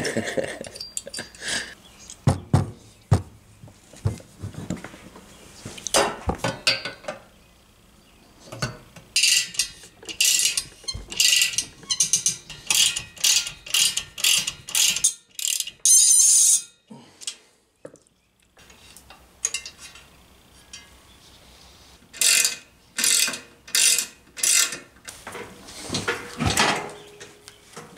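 Socket ratchet clicking in quick runs as the exhaust studs and nuts are tightened on a Puch Magnum moped cylinder, mixed with metal clinks and knocks from fitting the exhaust pipe. There is a thump near the end.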